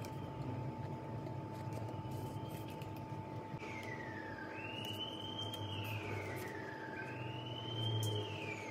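An emergency vehicle siren wailing in the background, its pitch rising and falling about every two and a half seconds, growing louder from a few seconds in. Under it are a steady low rumble and a faint steady hum.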